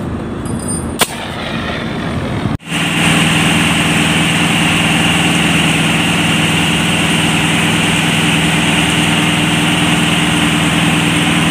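A sharp click about a second in, then after an abrupt cut about two and a half seconds in, an engine runs steadily at a constant speed.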